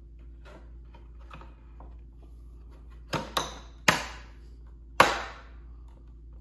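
Four sharp knocks and snaps from a truck tow mirror's plastic housing as parts are struck and pressed into place by hand, the last two the loudest, each dying away quickly.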